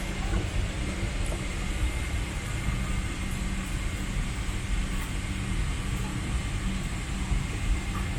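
Steady low rumble and hiss of an airliner cabin's air-conditioning and ventilation, with a faint steady high whine over it.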